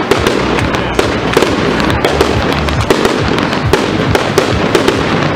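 Fireworks display: a continuous string of bangs and crackles from aerial bursts, several a second, with no break.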